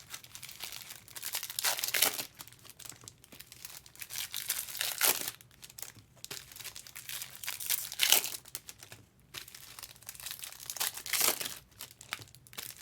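Foil trading-card pack wrappers being torn open and crinkled, with louder crackling peaks about every three seconds.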